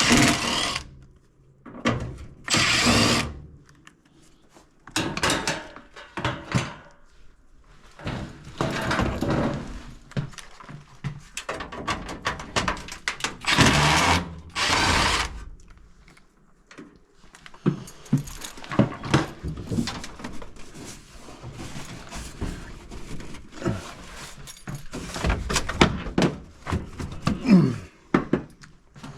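Hands-on tool work: irregular knocks and clunks of tools and metal parts, with a few short, noisy bursts about a second long, one near the start and another around the middle.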